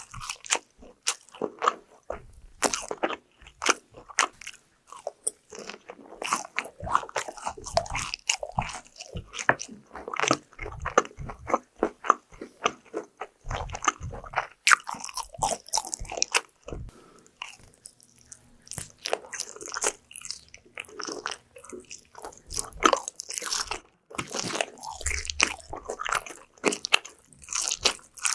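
Close-miked eating of crunchy fried food: repeated crisp bites and crunching, with chewing between them.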